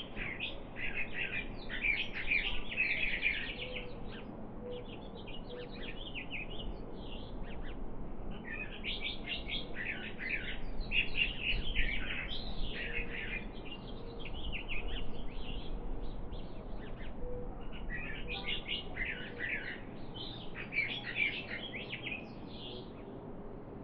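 Songbirds chirping and trilling in quick, dense bouts, several calls overlapping, with brief lulls between the bouts.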